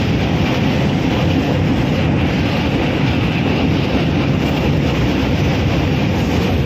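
Passenger train running at speed, a steady loud rumble and rush of wheels on rails heard from inside the coach at the window.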